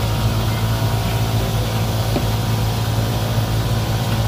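A motor or engine running steadily at constant speed: a low, unchanging hum.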